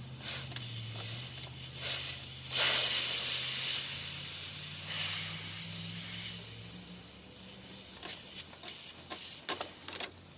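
Several bursts of hissing, the loudest about two and a half seconds in, over a low steady hum; a run of light clicks and knocks follows near the end.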